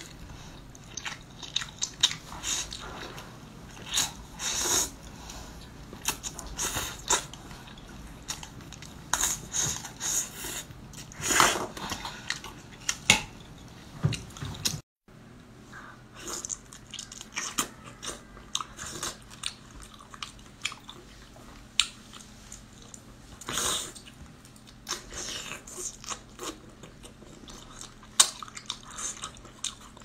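Close-miked eating sounds: chewing, biting and wet mouth clicks and smacks. The first half is a scallop topped with garlic and glass noodles. After a brief silent cut about halfway, the sounds come from chewy braised baby octopus tentacles.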